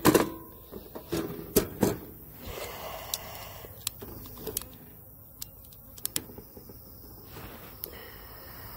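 Gloved hands handling shredded paper at a metal bee smoker: rustling paper with sharp clicks and knocks, loudest in the first two seconds, then scattered small ticks.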